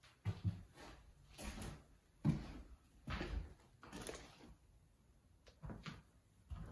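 Footsteps and scuffs of someone walking through a small room and hallway, with soft thuds and scraping, several of them crunching over a carpet strewn with fallen plaster.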